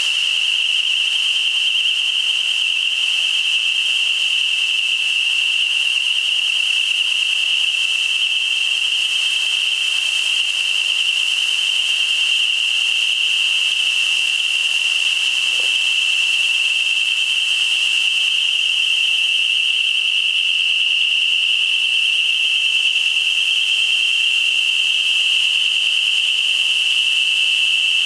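Security fog generators discharging with a continuous hiss, under a steady high-pitched alarm tone that holds one pitch throughout.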